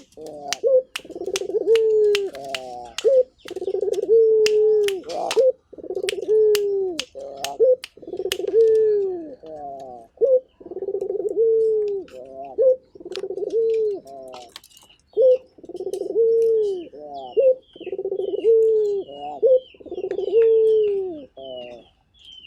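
Barbary dove (burung puter) cooing over and over, about ten phrases, each a long falling coo followed by a quick stuttering roll of short notes.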